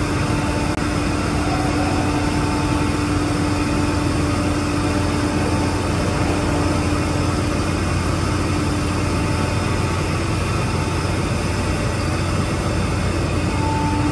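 Steady drone of heavy engines on a car ferry's vehicle deck: a dense, unchanging rumble with a constant hum running through it.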